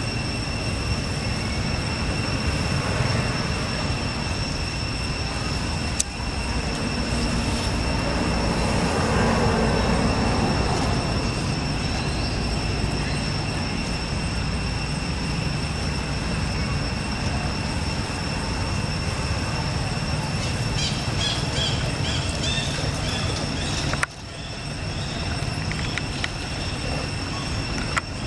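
Steady outdoor background of low road-traffic rumble, swelling for a few seconds about a third of the way in, under a constant high-pitched whine; a few faint high chirps come later.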